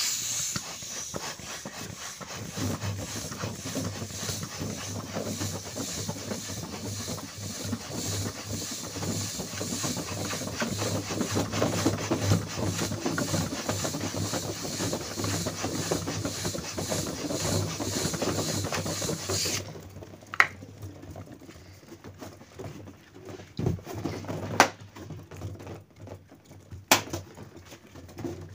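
Hand-held plastic balloon pump pushing air into a clear latex balloon, a breathy rush of air that stops abruptly about two-thirds of the way through. A few sharp clicks follow as the balloon is handled.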